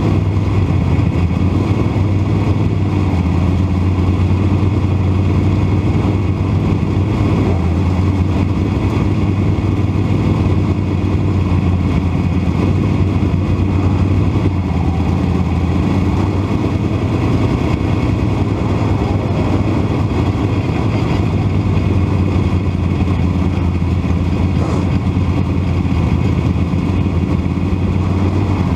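Dirt modified race car's V8 engine, heard from inside the cockpit while racing, running loud at a fairly steady pitch with little rise and fall.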